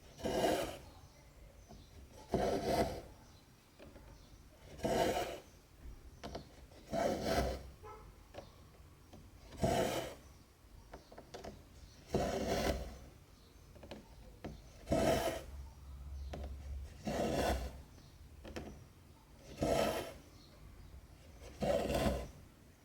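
Stranded cotton embroidery thread being drawn through 14-count cross-stitch fabric: a short rasping pull roughly every two seconds, about ten in all.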